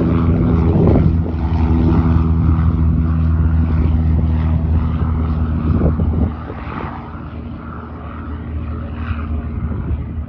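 Cessna 182A Skylane's six-cylinder Continental O-470 engine and propeller, droning steadily as the plane climbs out low over the runway. About six seconds in the drone becomes noticeably quieter and keeps fading as the plane moves off.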